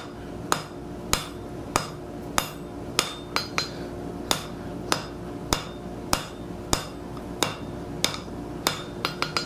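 Blacksmith's hand hammer striking red-hot steel on an anvil in an even rhythm, a little under two blows a second, each with a short metallic ring. The bar's end is being drawn down to a square taper.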